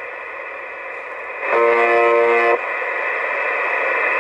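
Yaesu FT-817ND portable transceiver's speaker playing the Russian 'Buzzer' numbers station on 4625 kHz (UVB-76). Its harsh buzz tone sounds once, about a second and a half in, for about a second. It rides on a steady hiss of receiver noise, which is stronger and odder on this radio than on the Icom IC-703, a little like FM.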